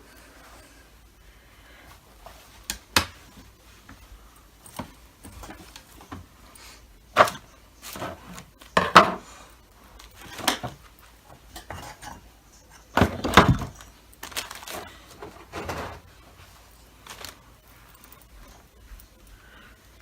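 Irregular knocks, clicks and clatter of hard objects being handled and set down on a work surface, with a few louder knocks scattered through.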